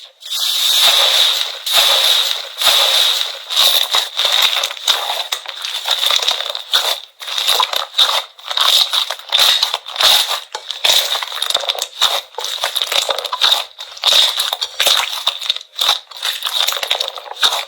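Slime being squeezed and pressed by hand, giving a dense run of short crackling, crunching bursts.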